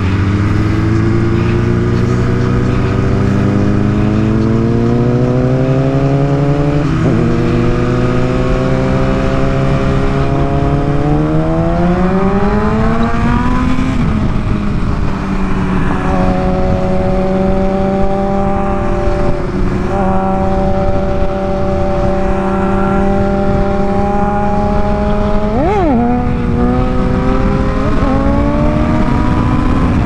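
BMW S1000RR's inline-four engine climbing slowly in revs for about ten seconds, then faster to a peak, before dropping and holding a steady cruise. Near the end there is a brief sharp rev spike. Wind rush is on the helmet mic throughout.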